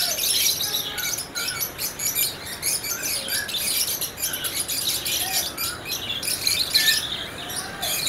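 Caged lovebirds chattering: a dense, unbroken mass of overlapping high-pitched chirps and squeaks from many birds at once.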